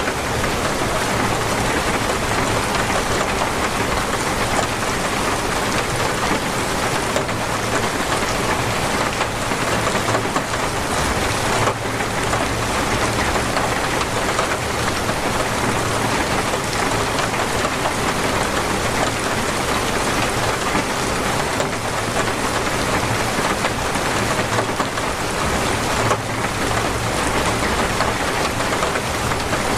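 Torrential rain falling in a steady, dense downpour, with no let-up.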